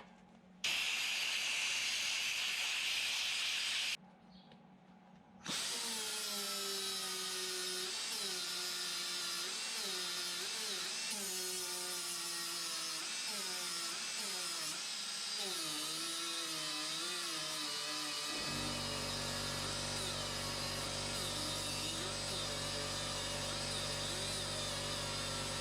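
Handheld power tool running: a burst of about three seconds, a short pause, then a long run whose pitch wavers and dips as the load changes. About two-thirds of the way through, a steady low hum comes in under it.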